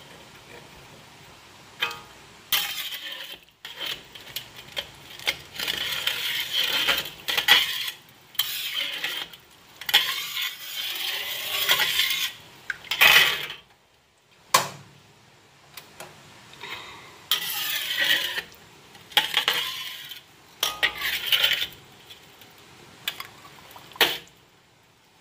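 Metal spatula scraping and clinking against a wok while stirring in soy-sauce liquid, in irregular bursts with sharp clinks and short pauses, one about halfway through.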